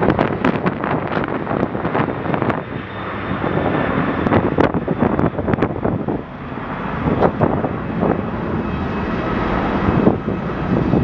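Airliner engines running, a steady rush with a faint high whine, under strong gusts of wind buffeting the microphone.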